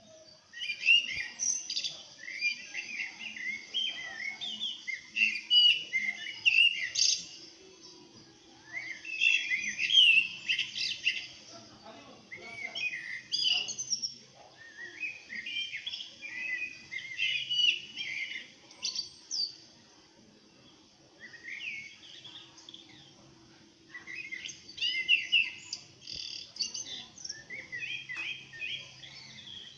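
Small birds chirping in bouts of quick, high calls a few seconds long, with short pauses between. It is a nature-sound recording played on one phone and re-recorded on another, so the top end is cut off.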